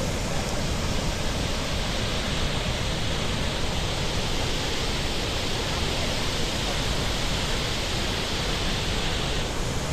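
Steady, dense roar of rushing water from Chitrakote Falls, the large waterfall swollen by monsoon rain.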